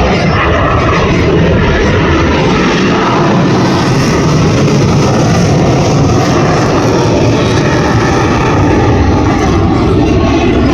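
F-16C fighter jet flying in full afterburner: loud, steady jet noise.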